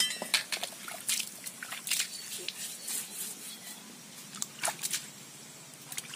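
Small fish being washed by hand in a plastic bucket of water: irregular splashing and sloshing, with water spilling out onto a stone slab.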